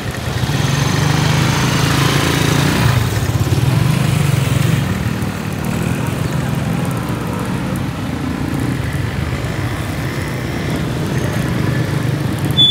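Street traffic of motorcycles and motorcycle-sidecar tricycles, their small engines running steadily as they pass. A short, sharp high tone sounds right at the end.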